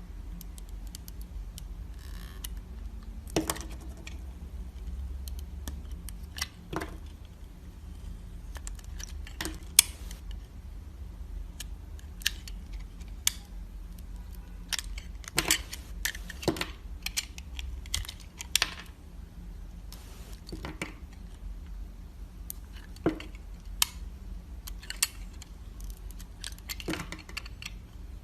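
Dry bar soap being cut with a knife: irregular sharp, crisp crunches and cracks, one or two a second, over a steady low hum.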